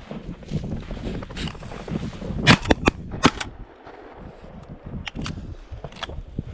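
Shotgun shots at a flushed pheasant: a quick string of sharp reports about two and a half seconds in, then a few fainter shots near the end. Wind buffets the microphone throughout.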